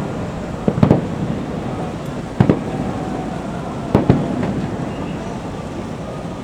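Aerial firework shells bursting at a distance: three booms about a second and a half apart, over a steady background noise.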